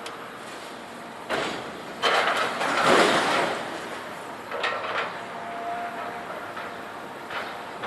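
Scrap metal banging and crashing as a loader handles scrap: a bang about a second in, a louder, longer crash of metal from about two seconds, and another bang near five seconds, over a steady background rumble.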